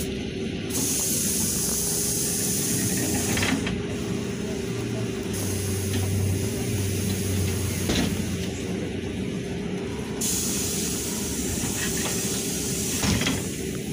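Cabin noise of a LiAZ 5292 city bus on the move: a steady engine and road rumble, with a high hiss that comes and goes several times.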